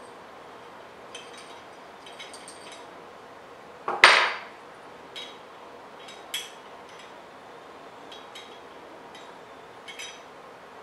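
Dab taken on a glass bong with a ceramic nail: a metal dab tool clinks lightly against the nail and glass several times, with one loud brief sizzle about four seconds in as the concentrate vaporises on the hot nail.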